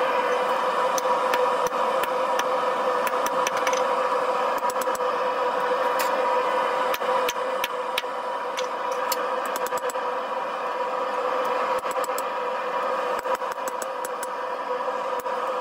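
Propane gas forge burner running with a steady rushing hum, over which come irregular runs of light knocks from a hammer striking a wood block on a hot knife's spine on the anvil, straightening it.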